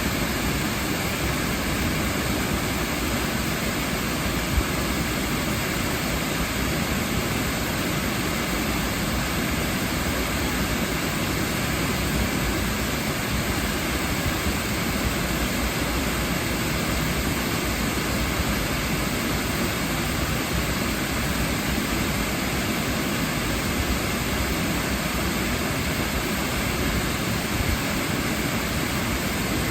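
Waterfall: falling water rushing in a steady, unbroken wash of noise.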